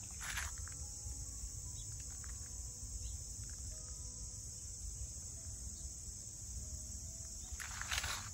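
Steady high-pitched insect chorus running without a break, with two brief rustles, one just after the start and one near the end.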